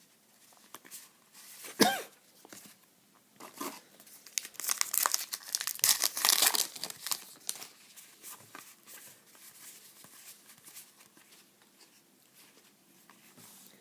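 A trading-card pack wrapper being torn open and crinkled, with a sharp snap about two seconds in and the loudest tearing and crinkling a few seconds later, then faint rustling.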